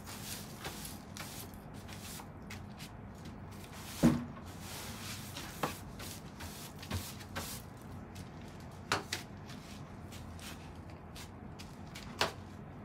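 Scattered knocks and clicks of household objects being handled, the loudest a single thump about four seconds in.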